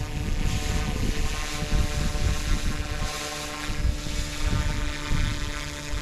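Flite Wing 200 electric RC helicopter in flight: a steady, even whine from its motor and spinning rotor. Wind rumbles unevenly on the microphone underneath it.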